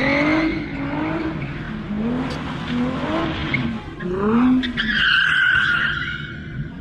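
A car engine revving hard in repeated rising pulses while its tyres squeal as the car slides in circles. A long, steady tyre squeal runs from about five seconds in.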